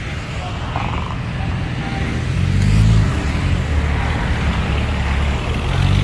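Heavy diesel engine of earth-moving machinery running, revving up briefly about halfway through and again near the end.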